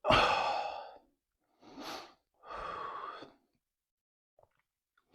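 A man breathing heavily between burps: a long, loud breathy exhale at the start, then a short breath about two seconds in and another lasting nearly a second.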